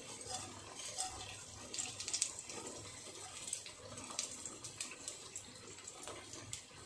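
Whole spices (cumin, black pepper, cloves) sizzling in hot oil as they are dropped in to temper, a soft hiss with many short sharp crackles and pops.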